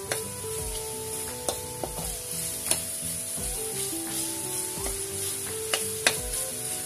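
Pork pieces sizzling in vegetable oil in a pan, stirred with a plastic spatula that clicks against the pan several times.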